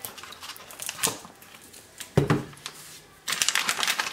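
Salad dressing pouring from a plastic bottle into a plastic bag of raw chicken, with small clicks and a short louder glug about two seconds in. Near the end the plastic bag crinkles as it is handled and squeezed.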